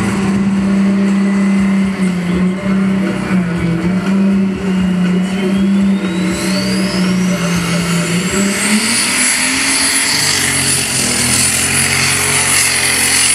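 High-powered pulling tractor's engine running flat out while it hauls the weight sled. A high whine rises steadily in pitch over the first nine seconds and then holds high, and the engine's low note climbs about eight seconds in.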